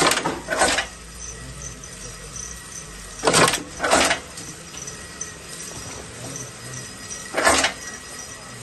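Automatic accessory setting machine cycling: five short, sharp strokes, two at the start, two more about three seconds later and one near the end, over a steady low machine hum.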